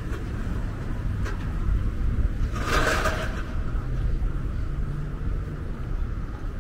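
Steady low rumble of street traffic, with a brief hiss a little under three seconds in.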